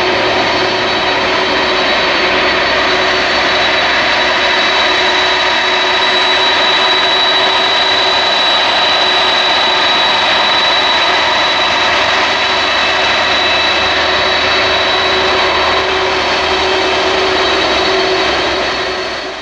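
Boeing 747 freighter's four jet engines running at taxi power as it taxis past: a steady roar with a high, constant whine. The sound fades away near the end.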